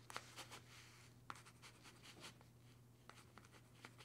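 Near silence: faint short scratching strokes, a few a second, over a steady low hum.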